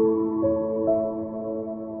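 Soft background music in a slow new-age style: sustained keyboard-like notes ringing on, with new notes entering about half a second and about a second in.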